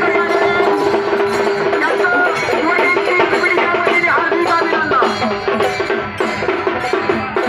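Music with a steady percussion beat played through a DJ sound system during a sound check.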